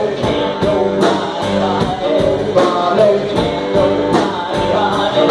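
Live band playing a rock-and-roll song: drums, guitars and keyboard, with a man singing.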